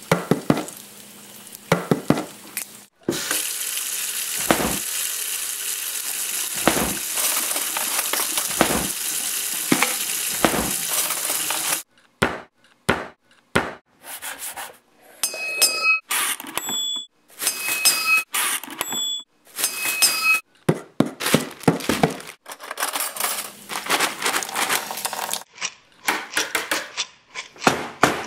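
Kitchen sounds cut into a rhythmic beat: clinks and clatter of dishes, pots and cutlery. For several seconds a steady hiss runs under low thumps about every two seconds. After that come chopped, stuttering clicks with short high beeps.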